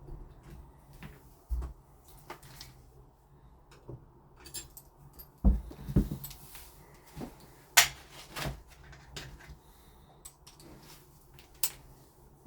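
Scattered knocks and clicks of metal lock hardware and screws being handled and fitted on a door, coming irregularly with a few louder knocks around the middle.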